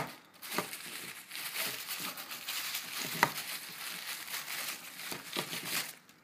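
Tissue paper crumpling and rustling as it is pulled off a wrapped coin capsule, with a few sharper crackles; it stops suddenly near the end.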